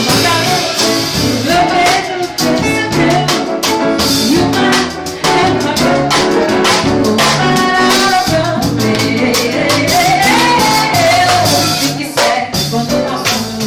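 Live band playing an instrumental break in a Brazilian popular song, with steady percussion strokes under a melodic lead line that rises and falls.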